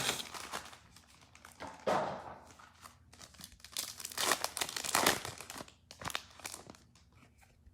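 Plastic wrapping crinkling and tearing in several bursts as a Panini Contenders football-card blaster box and its packs are opened.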